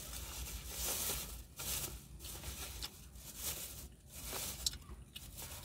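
Thin plastic carrier bag rustling and crinkling in irregular bursts as a styrofoam food box is handled inside it, with a few sharp clicks.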